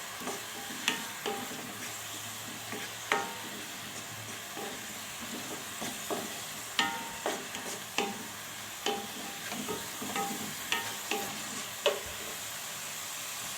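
Chopped onion sizzling in hot olive oil in a pot while it is stirred, the utensil knocking against the pot about a dozen times at uneven intervals, some knocks ringing briefly.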